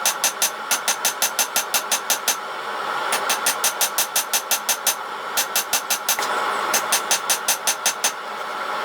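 Hammer blows on a 5160 spring-steel knife blank at the anvil: rapid runs of about five ringing strikes a second, broken by short pauses, over a steady background roar.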